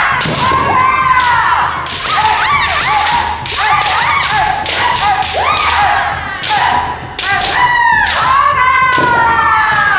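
Kendo bout: fencers' high, drawn-out kiai shouts overlapping one another, with repeated sharp knocks and thuds from shinai strikes and stamping footwork.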